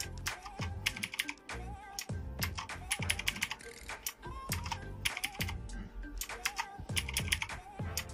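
Keys being pressed on a mechanical keyboard with clicky Outemu Blue switches, sharp irregular clicks several times a second, over background music.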